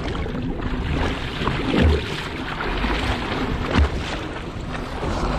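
Wind rushing over the microphone and water noise on a boat at sea, with two dull thumps about two and four seconds in.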